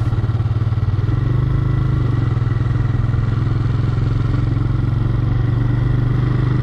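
Motorcycle engine running at a steady pace while being ridden, heard from on the bike, with a fast, even pulse.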